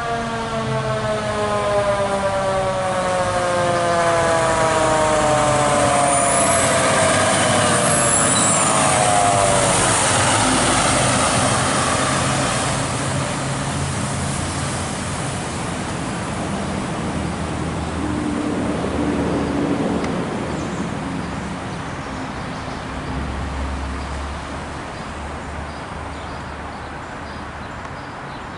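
Fire engine passing with its siren winding down in a long falling wail over the first ten seconds or so. Under it is the loud run of the truck's engine, which carries on and fades as the engine pulls away and slows.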